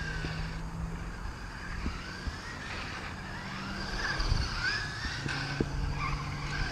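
Brushless electric motor of a Losi Rock Rey RC truck whining as it drives, its pitch rising and falling with the throttle, with a few short knocks from the truck running over the pavement.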